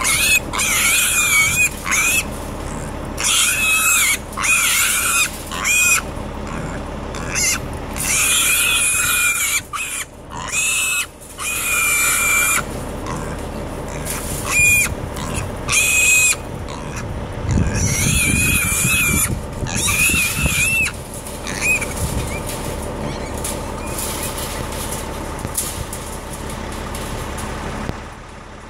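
Trapped wild pigs and piglets squealing over and over in loud, high-pitched cries, each up to about a second and a half long, which die away about three-quarters of the way through. A steady motor hum runs underneath.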